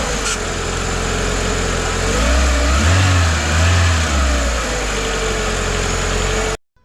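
Renault Clio 182's four-cylinder engine running just after a start, revved twice about two to four seconds in, then switched off suddenly near the end. A thin high squeal rides over it, its pitch rising and falling with the revs: the start-up squeal, still there after brake cleaner on the crank pulley, so not a slipping belt.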